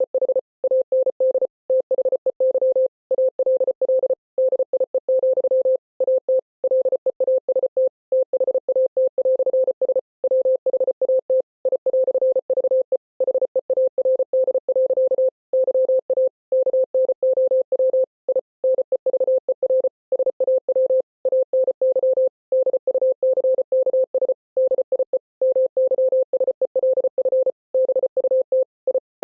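Morse code beeps: a single steady mid-pitched tone keyed on and off in a rapid, uneven stream of dots and dashes, with brief silent gaps between letters and words.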